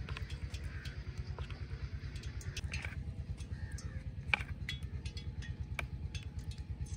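A steady low chugging throb of an engine running in the background, several beats a second. Over it come a few light clicks and taps as batter is spooned over a cauliflower head in a steel plate, the sharpest about four and a half seconds in.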